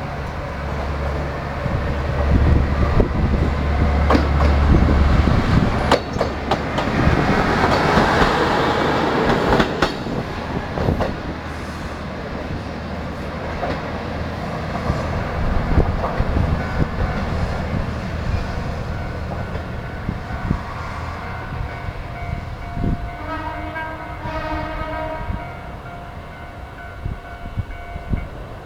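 Shimabara Railway KiHa 2500 diesel railcar pulling away: its diesel engine runs under power as it comes past, with sharp wheel clacks over the rail joints and points, then fades into the distance. Near the end a distant pitched tone sounds for about two seconds.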